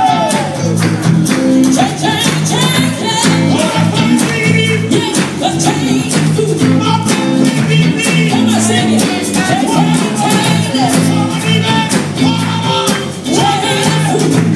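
Live band playing loudly with singers: electric guitars and drums under steady bass notes, with sung vocal lines over the top.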